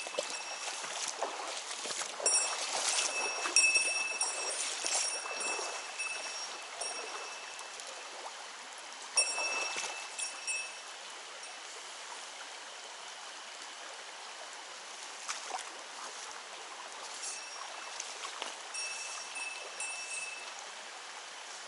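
Mountain stream running steadily. Louder irregular splashing comes in the first few seconds and again about nine seconds in. A thin high tone starts and stops several times over the water.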